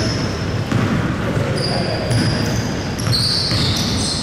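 Basketball bouncing on an indoor court during a game, several bounces at uneven spacing.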